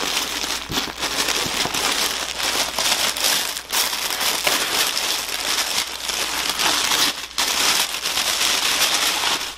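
Packaging wrap crinkling and rustling as a plush teddy bear is unwrapped and pulled out of it, a continuous crackly rustle that stops suddenly at the very end.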